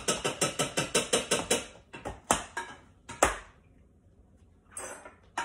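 A whisk beating rapidly against the side of a bowl, about six strokes a second, mixing water, cornstarch and sugar into a slurry. The whisking stops about two seconds in, followed by two louder single knocks.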